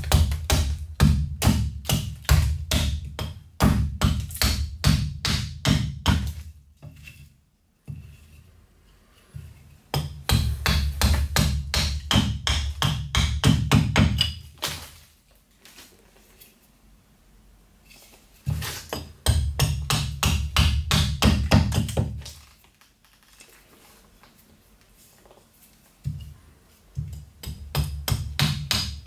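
Robin Wood carving axe hewing a wooden spoon blank held on a chopping stump: quick runs of short chops with a dull thud from the block, in four bursts broken by pauses of a few seconds.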